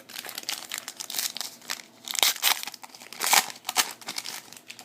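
Foil wrapper of a trading-card pack crinkling as it is handled and torn open, in uneven rustling bursts, loudest about two and three and a half seconds in.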